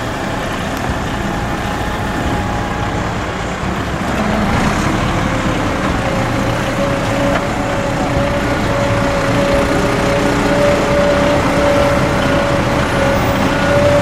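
Heavy diesel farm machinery running steadily, with a steady whine that sets in about five seconds in.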